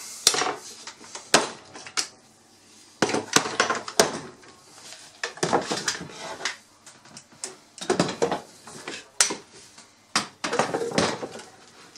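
Quick-release bar clamps being taken off a plywood forming press and put down, with irregular clicks, knocks and clatter, and the plywood boards being shifted by hand.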